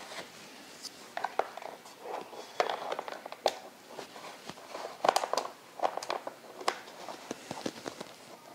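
Hard plastic clicking, knocking and scraping in irregular bursts as plastic divider strips are worked into the slots of a small plastic turtle tank's filter compartment.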